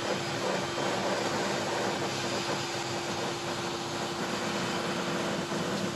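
Table saw with a flat-grind blade running and cutting into a dowel blank that a cordless drill spins against it in a table-saw lathe jig: a steady motor hum under a continuous rush of cutting noise.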